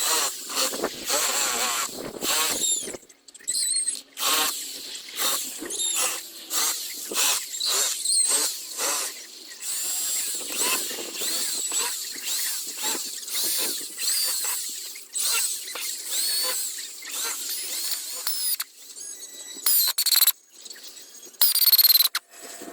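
A tool working hard wood in quick, repeated strokes, each pass with a squeaky, high-pitched sliding tone, for about twenty seconds and then breaking off into a few scattered strokes near the end.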